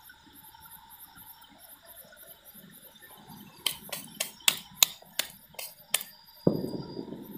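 Hands clapping together about nine times in quick succession, knocking white powder off them. A short rushing noise, about a second long, follows near the end.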